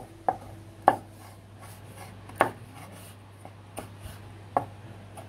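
Kitchen knife slicing a tomato on a wooden cutting board, the blade knocking sharply against the board several times at an uneven pace.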